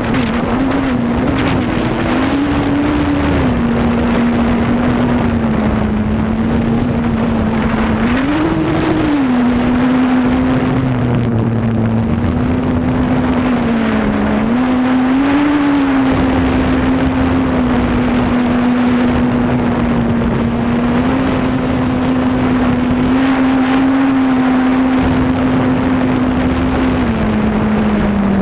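Quadcopter's electric motors and propellers buzzing steadily, heard from the camera mounted on the craft, over a rushing noise. The buzz rises briefly in pitch a few times as the throttle changes: about a third of the way in, about halfway, and again at the very end.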